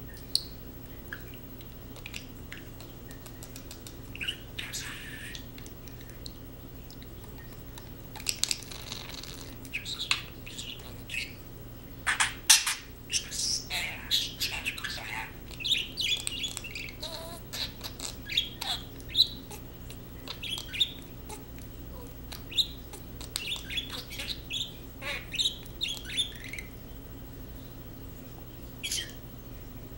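Pet budgerigar chattering: a quick run of short chirps and calls, few at first and busiest from about eight seconds in until near the end.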